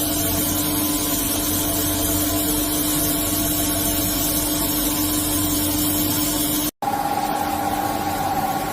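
SNK RB-200F five-axis CNC bridge mill running: a steady machine whine over a hiss. A short break about seven seconds in, after which a higher whine takes over.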